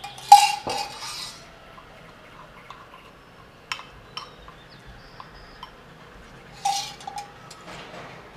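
A steel measuring cup and spoon clinking against a ceramic bowl as water is added to flour and mixed into a batter. There is a loud clink with a short ringing tone just after the start, a few light taps in the middle, and a second ringing clink near the end.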